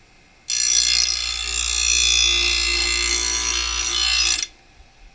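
Steel lawn mower blade being ground on the grinding wheel of a Magna-Matic blade sharpener: a loud, gritty, high-pitched grinding that starts about half a second in, holds steady for about four seconds, then stops abruptly as the blade comes off the wheel.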